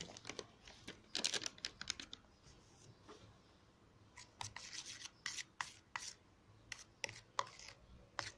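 Metal teaspoon scraping and clinking against a plastic tub while stirring baking soda into dish soap, in short irregular scrapes and clicks that come in two bunches, a brief one about a second in and a longer run through the second half.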